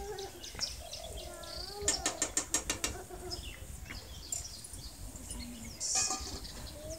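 Birds chirping and calling in the background, with wavering pitched calls and short high chirps. Around two seconds in comes a quick run of about ten sharp ticks.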